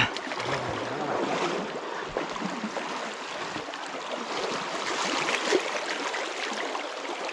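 Hooked trout splashing and thrashing at the surface of a shallow river as it is led into a landing net, with a sharp splash at the start, over the steady rush of flowing stream water.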